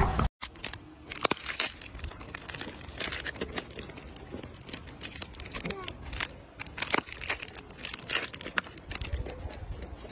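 Plastic snack wrapper crinkling and rustling in irregular crackles as it is handled and torn at.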